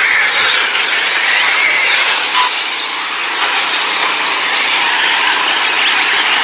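Radio-controlled off-road race cars running on a dirt track: a steady high hiss with thin whines that rise and fall as the cars accelerate and brake.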